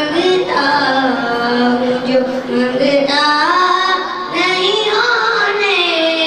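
A boy singing a naat into a microphone, holding long notes that glide and waver in pitch.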